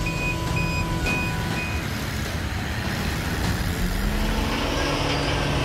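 Heavy vehicle's engine running, with its reversing alarm giving four high beeps about two a second before it stops; a little past halfway the engine rises in pitch.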